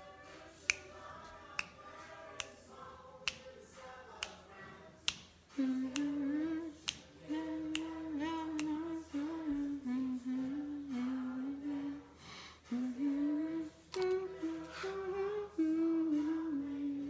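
Finger snaps keeping a steady beat, about one a second, joined about five seconds in by a voice singing a slow melody.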